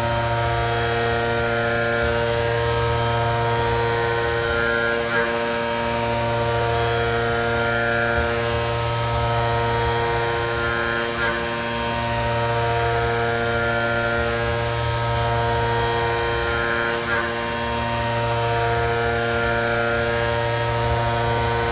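CNC milling machine running with a steady, many-toned whine, swelling slightly and ticking about every six seconds as it repeats its passes.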